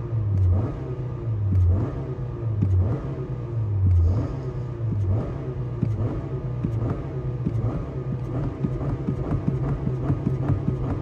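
Car engine revved in short blips, about one a second for the first five seconds, then settling to a steady idle.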